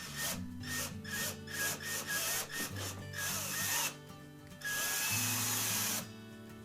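Power drill drilling anchor holes in a wall: a series of short on-off bursts, then one longer steady run near the end.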